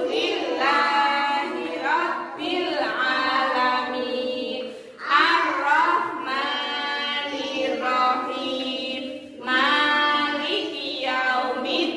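A woman and a group of young children singing together in unison, in phrases broken by short pauses for breath.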